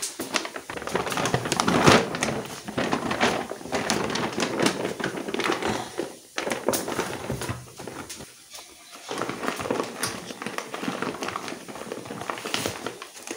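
Greased kraft paper bag rustling and crinkling as a seasoned whole chicken is pushed into it and the bag is folded shut, with light knocks of handling. The rustling goes quiet briefly about eight seconds in.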